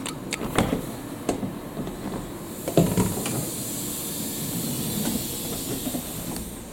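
Passenger train sounds: several sharp knocks and clunks in the first three seconds, the loudest a little under three seconds in, then a steady hiss lasting about four seconds.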